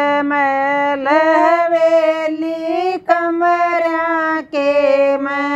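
Women singing a Haryanvi folk song with no instruments, in long held notes that slide between pitches. The singing breaks for a short breath about three seconds in and again about four and a half seconds in.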